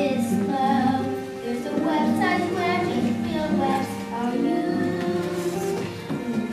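Children singing a song from a stage musical over instrumental accompaniment.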